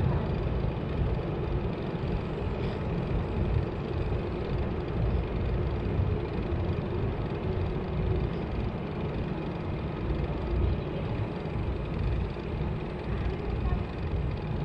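Steady road noise during a ride: a low, uneven rumble with no distinct events.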